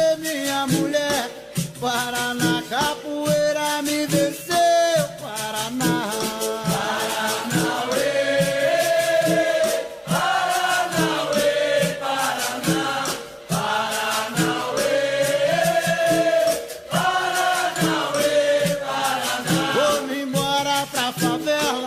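Music: a song with a sung vocal melody over a steady percussive beat.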